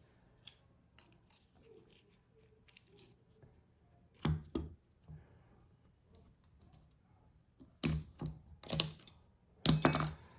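Sharp clicks and taps of the small parts of a Spyderco Stretch 2 folding knife being handled as its handle is taken apart. There is a faint tick or two early, a louder pair about four seconds in, and a quick cluster of clicks near the end.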